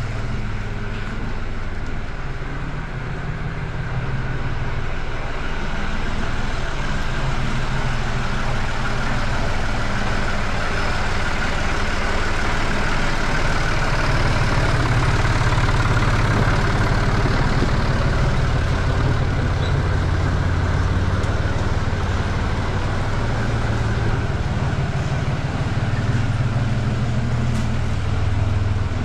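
Small farm tractor's diesel engine running steadily close by, a low, continuous engine rumble that swells a little a few seconds in and then holds.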